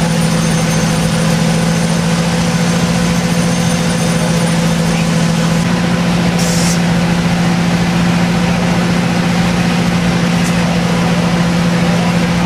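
Fire engine's engine running at a steady speed, a constant low drone. A short hiss cuts in about six and a half seconds in.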